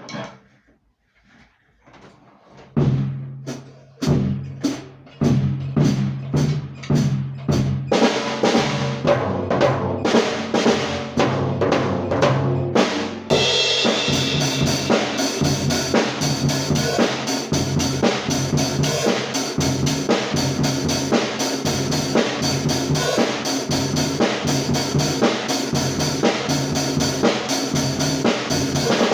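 Isolated pop rock drum kit track: a few scattered hits at first, then evenly spaced strikes on kick and low drums that ring out, growing denser. About thirteen seconds in the cymbals come in and a full-kit beat with snare carries on steadily.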